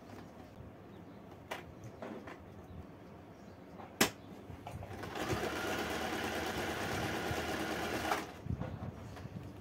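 Acme 565 oscillating-hook domestic sewing machine: a few light clicks and one sharp click about four seconds in as the fabric is set under the needle, then the machine runs steadily, stitching for about three seconds, and stops near the end.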